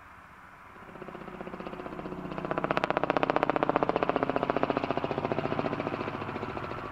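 Robinson R44 Clipper II helicopter flying over, its two-blade main rotor making a fast, even chop. The chop grows louder from about a second in, is loudest around the middle, then slowly fades.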